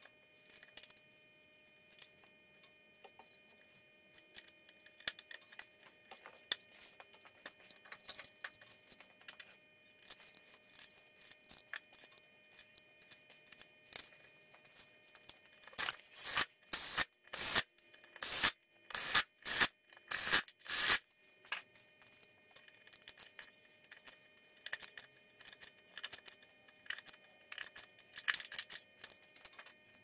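Cam cap bolts on a motorcycle cylinder head being run down with a hand ratchet after a valve shim change, amid light clicks and clinks of small metal parts being handled. About halfway through comes a run of about ten short ratcheting strokes, roughly two a second.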